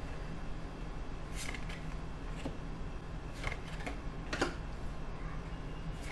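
Tarot deck being shuffled by hand: a handful of separate, short clicks and slaps of card against card, irregularly spaced, over a steady low hum.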